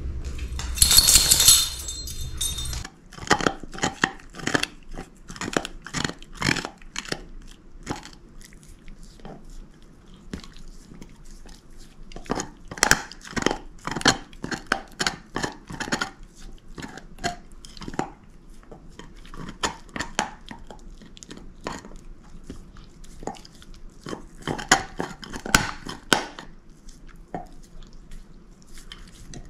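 Shepherd-mix dog gnawing on a large bone: teeth scraping and crunching against the bone in clusters of sharp clicks, with quieter pauses between bouts. It opens with a short, loud scuffling burst over a low hum that cuts off about three seconds in.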